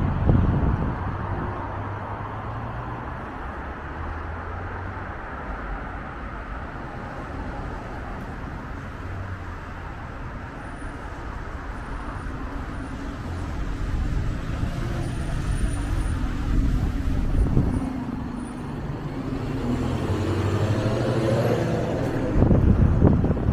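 Street traffic: passing vehicles give a steady hum that swells twice as they go by. Wind buffets the microphone at the start and again near the end.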